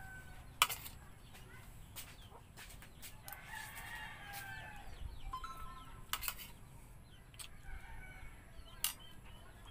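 Chickens: a rooster crowing once, lasting about a second and a half, from about three seconds in, and a chicken clucking just after. A few sharp clicks are heard as well, the loudest about half a second in.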